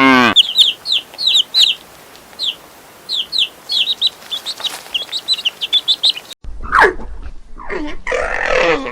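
Chicks peeping: rapid, high, short chirps, each falling in pitch, for about six seconds. Then the sound cuts to a different animal's calls that slide down in pitch.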